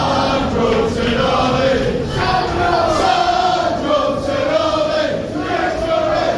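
Football crowd singing a chant together, many mostly male voices holding long drawn-out notes in unison.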